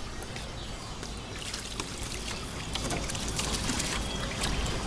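Water from a garden hose running steadily into a dog's paddling pool, with a dog splashing and sloshing about in the water, giving small scattered splashes.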